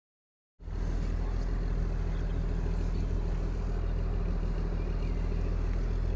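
Self-propelled crop sprayer's engine running steadily as the machine drives across the field, a deep even drone that cuts in abruptly about half a second in.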